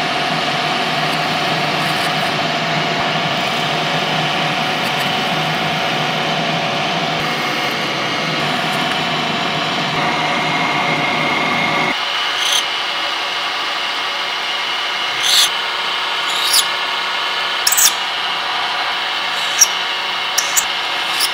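Drill press running a carbide end mill through a hardened O1 tool-steel knife blank, too hard for high-speed-steel drill bits: a steady motor whine with the cutter grinding into the metal. About halfway through the sound changes, and several brief sharp squeals of the cutter biting the steel follow.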